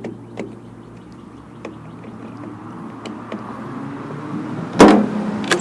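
Small clicks and knocks from handling the recoil starter of a Stihl BG55 leaf blower, with one much louder short burst of noise near the end. The starter is not rewinding its cord.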